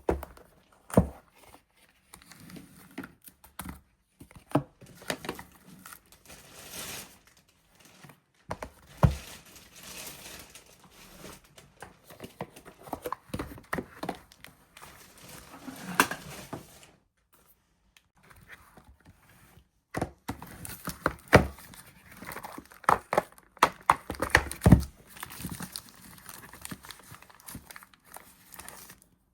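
Soap bars being unwrapped by hand: packaging crinkling and tearing, with sharp taps and a few heavier thunks as the bars and wrappers are handled.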